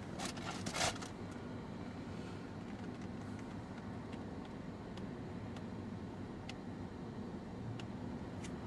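Steady low hum of a car's cabin, with a short rustle in the first second and a few faint scattered clicks.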